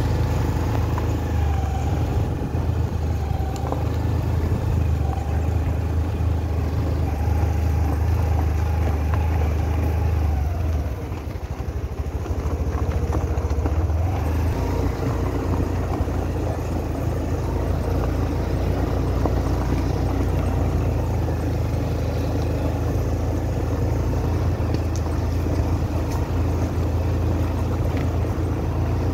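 Motorcycle engine running while riding slowly over a rough, potholed dirt road, with steady low rumble from the engine, road and wind. The rumble eases briefly about eleven seconds in, then picks up again.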